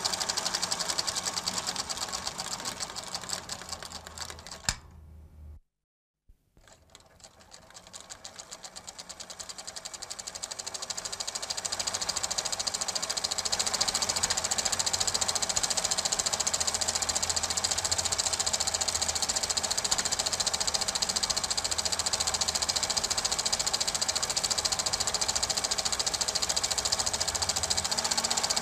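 Super 8 film projector running with a fast, even mechanical clatter. The clatter dies away and stops about five seconds in, then returns and builds up over several seconds to a steady run.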